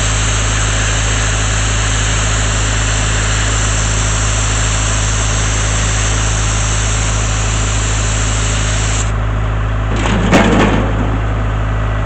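Sandblasting nozzle hissing on compressed air over the steady drone of an engine-driven air compressor; about nine seconds in the blast stops suddenly, a short knock follows, and the compressor engine runs on alone.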